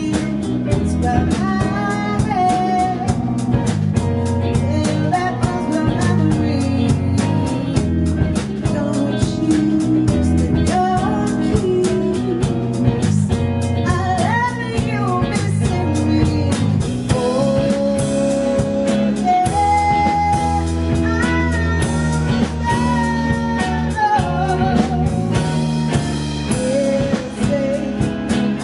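A live blues band playing: electric guitars, bass and drum kit, with a bending, wavering lead melody over the top.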